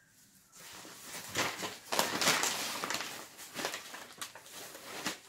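Brown paper bag crinkling and rustling as it is pulled open and handled, a run of crackles and scrapes starting about half a second in.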